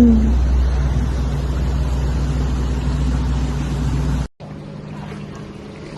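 A steady engine hum over a heavy low rumble, broken off by an abrupt cut about four seconds in, after which a quieter steady hum goes on.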